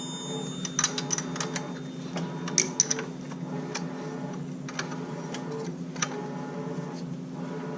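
Hand tools working on an ATV's front brake caliper: scattered light clicks and taps at uneven spacing, over a steady low hum.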